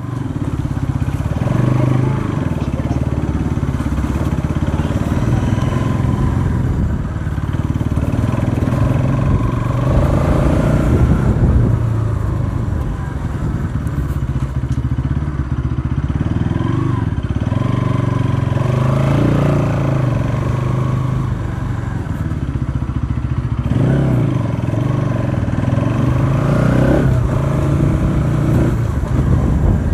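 Motorcycle engine running steadily while the bike is ridden, its note rising and falling slightly with the throttle.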